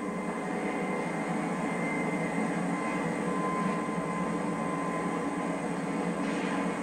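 Steady rumbling background noise with faint high whine tones running through it. No distinct strikes or shouts stand out.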